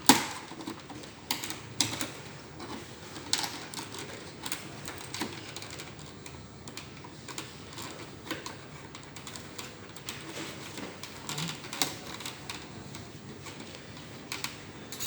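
Plastic snap-in clips of an HP 200 G3 All-in-One PC's back casing popping loose as a pry tool works around the edge: scattered sharp clicks and cracks, the loudest right at the start. It is the sound of the clips releasing, not of plastic breaking.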